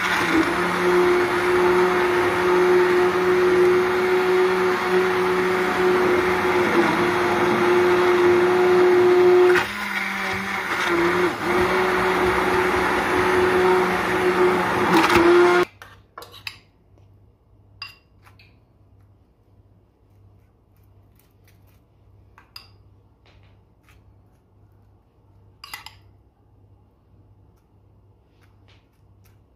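A 300-watt immersion blender running in a steel pot, puréeing a chunky stew of potatoes and carrots; its steady motor pitch dips briefly about ten seconds in. It cuts off abruptly about halfway through, and only a few faint clicks of a spoon against a plate and bowl follow.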